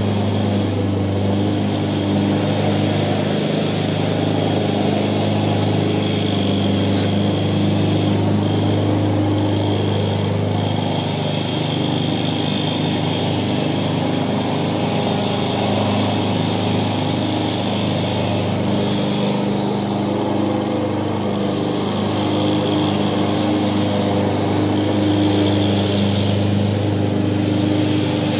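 Walk-behind gas lawn mower running steadily at a constant engine speed while mowing grass.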